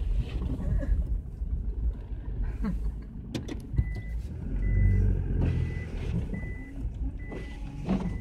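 Mitsubishi Delica L400 heard from inside the cab, with a steady low engine and road rumble as it moves. From about four seconds in, a high electronic beep from the vehicle repeats about once every 0.8 seconds, about six times.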